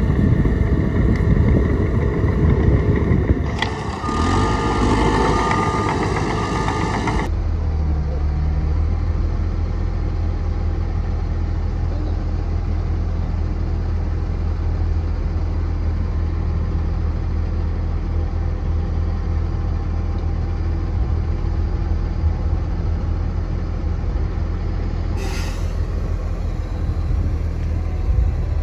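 Heavy diesel construction machinery running with a deep, steady engine rumble. A higher tone joins in for a few seconds near the start, and the sound changes abruptly about seven seconds in.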